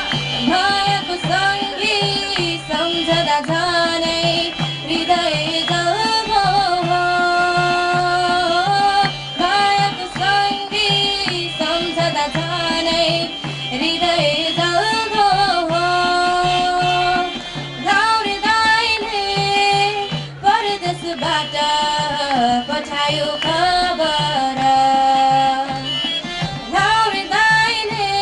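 A woman singing a Nepali folk song through a microphone in long, held phrases, accompanied by a harmonium and a hand drum keeping a steady beat.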